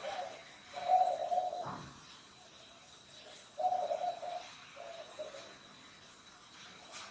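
A dove cooing in short phrases, with the loudest coos about a second in and again past three and a half seconds. A faint steady high-pitched tone lies beneath.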